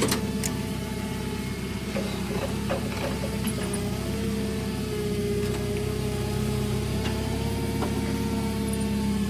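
Forklift engine running steadily while the forklift is driven, with a sharp click at the start and a few light knocks along the way.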